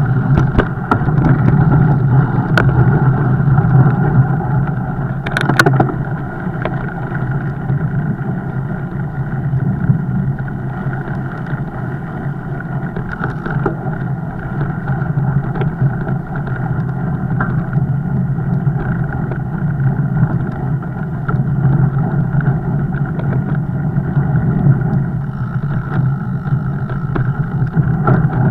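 Steady rumble of a fat bike being ridden, with scattered clicks and knocks throughout.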